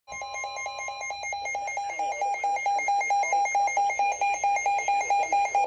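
Emergency Alert System alert tone: a loud electronic tone with a fast, regular pulse, cutting off sharply just before the spoken warning begins.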